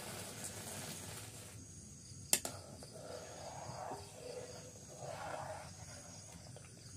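Rice poured into a wok of hot milk, then a metal ladle stirring and scraping through it, with one sharp knock of the ladle on the pan about two seconds in. Crickets chirp faintly and steadily.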